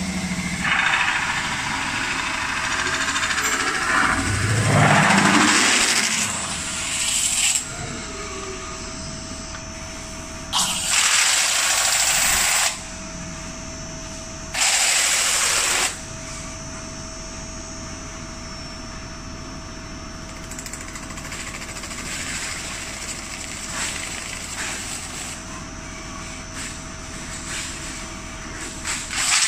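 Single-roller CNC metal spinning machine working a 1.2 mm aluminium disc into a pan. A whine rises in pitch about four seconds in, then holds as a steady whine. It is broken by three loud hissing bursts of one to three seconds that start and stop abruptly.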